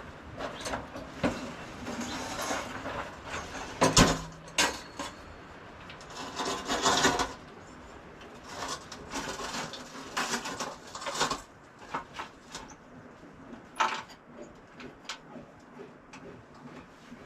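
Handling noises: irregular knocks, scrapes and rubbing of tools and parts being moved about, with a sharp knock about four seconds in and a longer scraping stretch a few seconds later.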